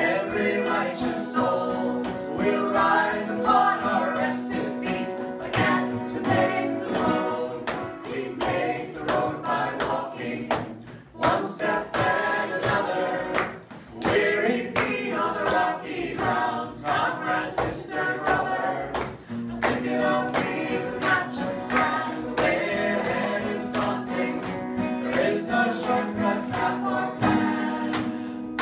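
Live folk song: acoustic guitar and banjo accompanying several voices singing together in harmony, with two brief breaks in the music about 11 and 14 seconds in.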